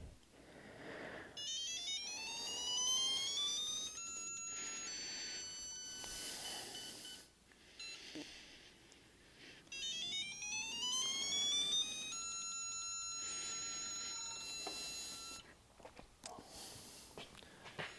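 Digital torque tester's electronic tone rising in pitch as a beam torque wrench is pulled up toward 150 ft-lb, then holding steady at the target. It happens twice: the first rise starts about a second in and the second about ten seconds in, and the second steady tone lasts about three seconds.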